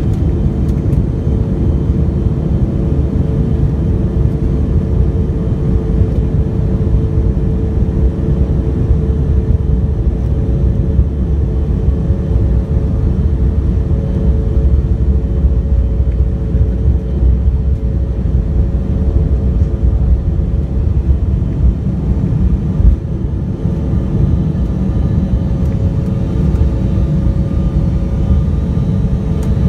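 Embraer 175's twin GE CF34 turbofan engines at takeoff thrust, heard from inside the cabin: a steady engine drone over a heavy rumble from the runway during the takeoff roll. A single thump about three-quarters of the way through is followed by a slightly lighter rumble as the jet climbs away.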